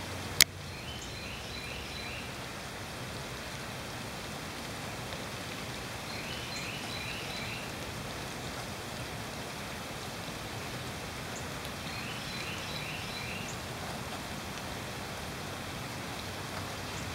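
Steady rain hiss. A bird sings a short phrase of several quick high notes three times, about five or six seconds apart, and a single sharp click sounds about half a second in.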